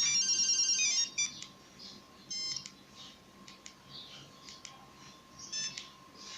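Nokia 1100 monophonic ringtone: a rapid run of high electronic beeps that stops about a second in. A quieter gap follows, with a few faint short beeps about two and a half and five and a half seconds in.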